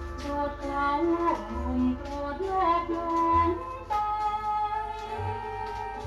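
An old Thai popular song played from a vinyl LP: a woman's voice singing a gliding melody over band accompaniment.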